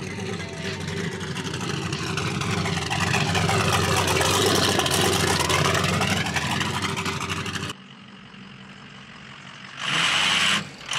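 Pickup truck engine running and growing louder as the truck drives up and passes close by, then fading. Near the end come two short, loud bursts of noise.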